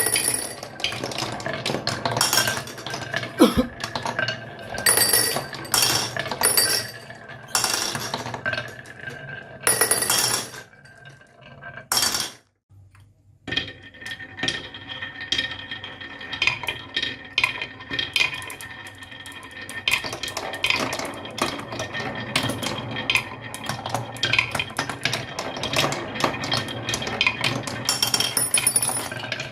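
Small hard toy pieces clinking, clacking and rattling against each other in rapid, irregular clicks, with a brief break about twelve seconds in.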